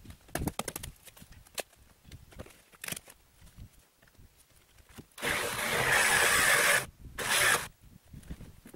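Wooden and metal camper wreckage being pulled apart: scattered knocks and cracks, then a loud rasping noise about five seconds in that lasts about a second and a half, followed after a short break by a briefer one.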